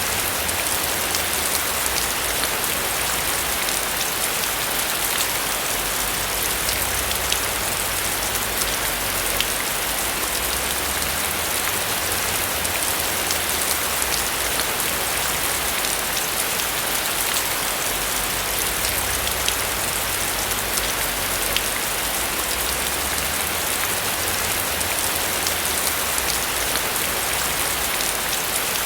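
Steady rain falling on a roof, a dense even hiss with many small drop taps.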